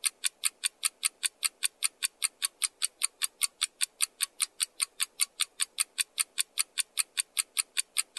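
Countdown timer sound effect: fast, even clock ticks, about five a second, over a faint steady hum.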